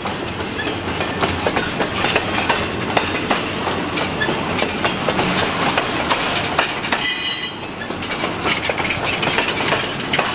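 Freight cars rolling past, their wheels clicking over rail joints in an uneven clatter, with a brief high-pitched squeal about seven seconds in.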